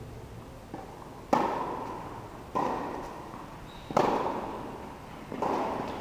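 Tennis ball struck by rackets in a rally: a serve about a second in, then three more strikes about every one and a half seconds. Each strike is loud and rings on in the echo of a large metal-roofed indoor court.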